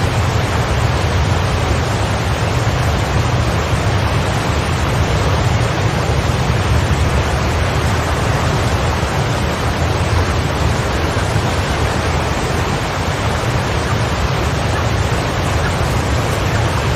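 Steady heavy rain used as a sleep sound: an even rushing hiss with a deep low rumble.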